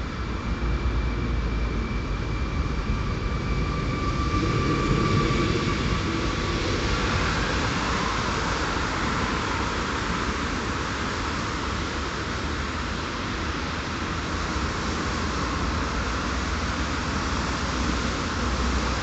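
Electric multiple unit pulling away from the platform. Its traction motors whine with a steady high tone for the first several seconds, the lower tone rising slightly. The whine then gives way to a steady rushing noise of the departing train and road traffic, over a low rumble.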